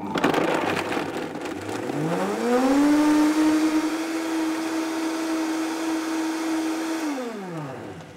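Vitamix high-performance blender blending a thick cashew cream smooth. It starts with a rough churning of the contents, then rises in pitch to a steady high speed about two to three seconds in, and spins down near the end.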